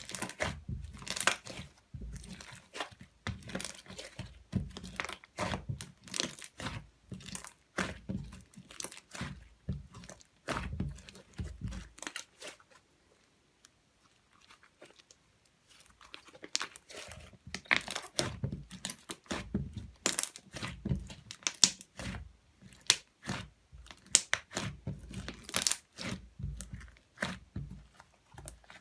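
Hands kneading and stretching slime mixed with makeup: quick sticky clicks, pops and crackles, in two long spells with a pause of a few seconds in the middle.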